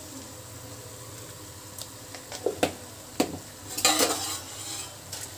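Onion-tomato masala sizzling gently in a metal kadhai. About two seconds in come a few sharp metal clinks, then a short burst of clinks and scraping of a utensil against the pan near four seconds in.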